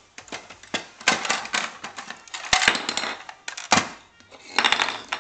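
Several clusters of quick clicking, crackling pops, each cluster lasting about half a second, with short gaps between them.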